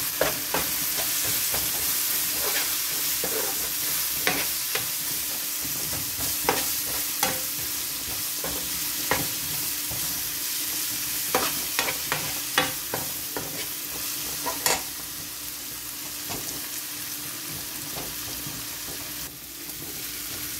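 Chopped onions and spices sizzling in a hot nonstick frying pan as a spatula stirs them, with irregular clicks and scrapes of the spatula against the pan.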